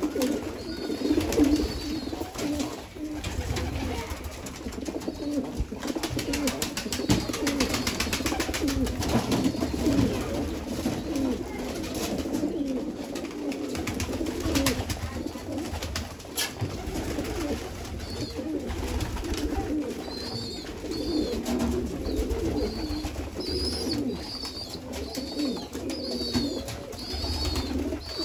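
A flock of domestic pigeons cooing together in a loft, many overlapping low burbling coos without a break. Short high chirps repeat through the last several seconds.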